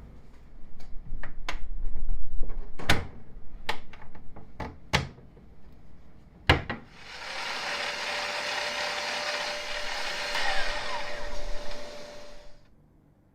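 A series of sharp wooden knocks, then a handheld power tool runs steadily for about five seconds and cuts off.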